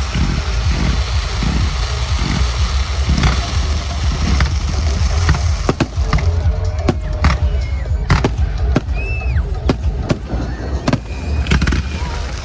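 Fireworks going off over loud music with a pulsing bass beat; sharp bangs and crackles come thick and fast from about halfway through.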